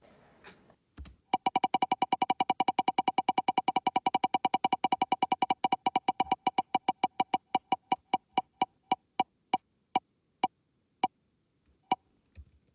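An on-screen prize-wheel spinner ticking: rapid electronic ticks, about ten a second, that slow steadily as the wheel loses speed, the last few ticks spaced well apart as it comes to a stop on a result.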